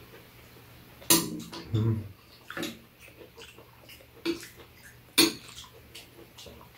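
Metal spoons clinking and scraping against ceramic bowls as bibimbap is mixed and scooped, with a few sharp clinks, the loudest about five seconds in.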